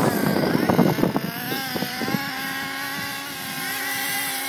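Radio-controlled car's motor whining steadily as the car is driven, with a rough clattering over the first two seconds.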